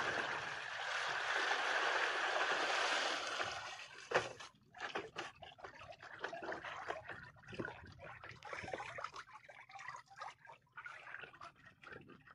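Seawater pouring and trickling off a plastic mesh cage as it is hauled up out of the sea, for about the first four seconds. After that come scattered clicks and knocks as the wet plastic cage is handled and emptied.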